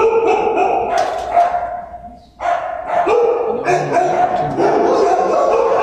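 Din of many shelter dogs barking at once in a kennel, a near-continuous overlapping clamour with a brief lull a little over two seconds in.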